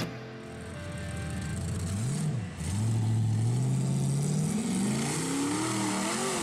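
Off-road vehicle's engine revving under load, its pitch rising and falling repeatedly, with a brief drop about two and a half seconds in.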